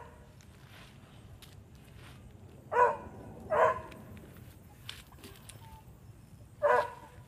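A dog barking: three short barks, two close together about three seconds in and one near the end.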